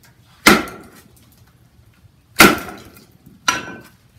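The steel poll of an Estwing Sportsman axe, its bit sunk in a piece of red oak, is dropped three times onto a wooden chopping block, driving the axe through the log to split it. Three sharp knocks, about two seconds and then one second apart, each with a brief metallic ring.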